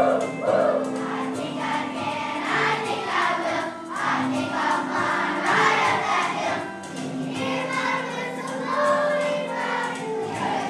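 A group of children singing a song together with musical accompaniment.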